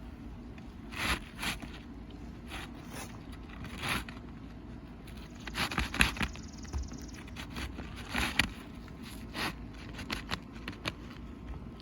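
Irregular scraping and rustling of asphalt roof shingles being worked by hand during a shingle replacement. There are several short bursts, the loudest about six and eight seconds in.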